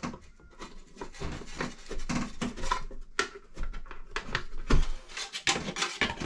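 Handling noises from working inside a ceiling bathroom fan housing: irregular clicks, taps and rubbing of plastic and metal as the light fixture's cord is plugged into the housing's receptacle, with a louder knock about three-quarters of the way through.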